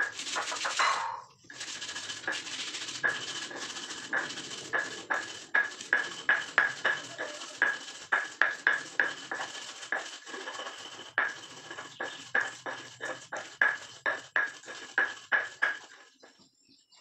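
Stone pestle knocking and grinding in a stone mortar, crushing a spice paste with repeated strokes, about two or three a second, that stop shortly before the end.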